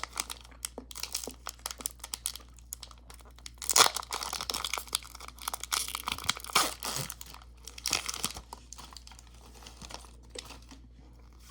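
Foil Pokémon booster pack crinkling in the hands and being torn open, a run of crackles and rips with the louder tears about four and seven seconds in.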